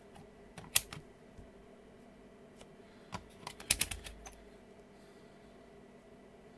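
Sharp plastic clicks from a hand working a DT-830B digital multimeter: a few clicks just before a second in as its rotary range dial is turned, then a quick cluster of clicks and light knocks around three to four seconds in as the test leads are handled.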